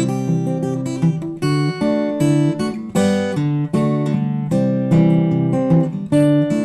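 Acoustic guitar being strummed, chord after chord in a steady rhythm, with no voice singing over it.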